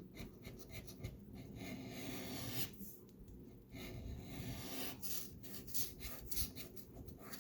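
A scratch-off lottery ticket being scratched: faint rasping strokes as the coating is scraped off, in two spells with a short pause about three seconds in.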